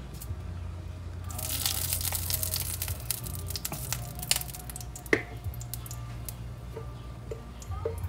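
A slotted spatula scraping and pushing melting ghee around a nonstick frying pan: a rough, scratchy hiss for about three seconds, then a few light clicks and taps.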